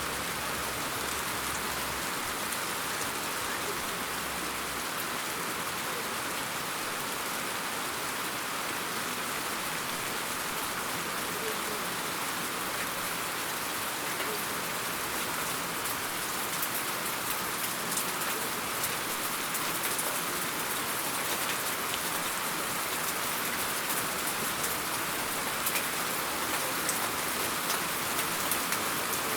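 Steady rain falling, an even hiss with many fine drop ticks and no thunder.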